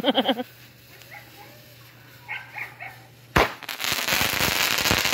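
A consumer firework goes off about three and a half seconds in: a sharp pop as it shoots upward trailing sparks, then a dense crackling hiss lasting about a second and a half.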